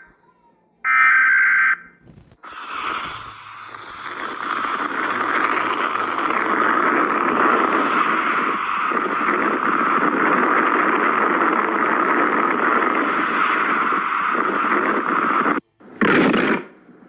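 Synthetic emergency-alert alarm sounds: a short electronic beep about a second in, then a long, harsh, steady hiss-like buzzing tone for about thirteen seconds that cuts off suddenly, followed by another short burst near the end.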